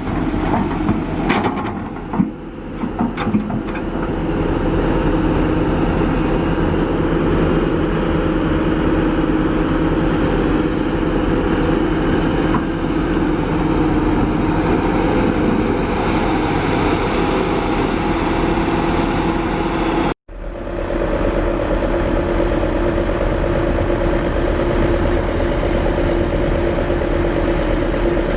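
Heavy diesel engine of an excavator running steadily under work, with a few knocks in the first few seconds. The sound cuts out for a moment about twenty seconds in, then the engine carries on.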